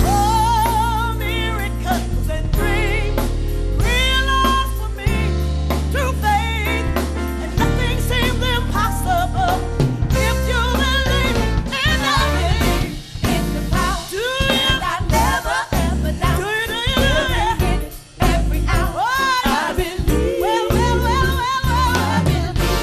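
Live gospel-soul song: a woman sings the lead with wide vibrato over a band with bass and drums.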